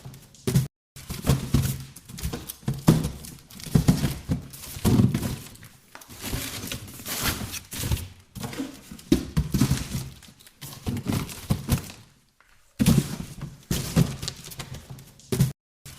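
Boxes being handled and shifted: a steady, irregular run of thunks and knocks, with stretches of scraping and rustling as boxes slide and are pushed about.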